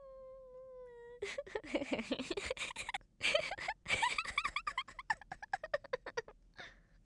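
A girl crying: a held whimper that falls slightly in pitch, then loud sobbing wails broken into rapid catches of breath, ending with a short breath about six and a half seconds in.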